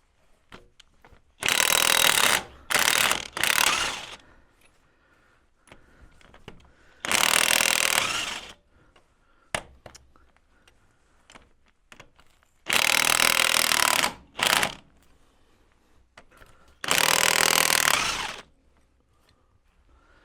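Power tool, most likely a pneumatic impact wrench, run in seven short bursts of one to two seconds each with pauses between them, as fasteners are undone while the engine is stripped down.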